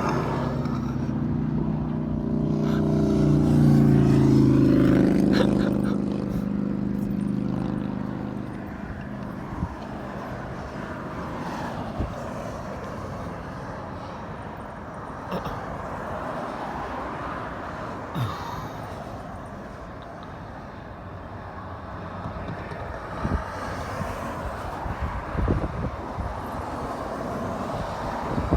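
Road traffic: a motor vehicle passes close by, rising and then fading a few seconds in, followed by steady traffic noise with a few sharp clicks.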